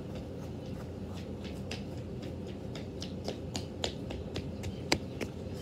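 A quick, irregular run of sharp clicks and taps, the loudest about five seconds in, over a steady low hum.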